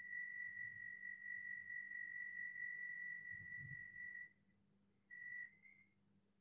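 A steady high-pitched tone, one pure pitch, that starts abruptly and holds for about four seconds before cutting off. About a second later a short second tone sounds and steps slightly higher just before it stops.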